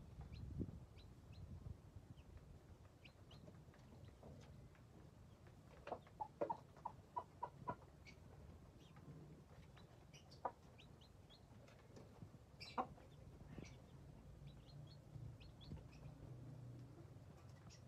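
Young chicks peeping softly with short high chirps, and a mother hen clucking, including a quick run of short clucks about six to eight seconds in.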